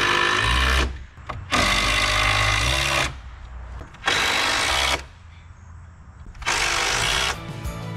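Cordless power drill running in four short bursts, each about a second long, with brief pauses between: driving fasteners into the roof overhang framing.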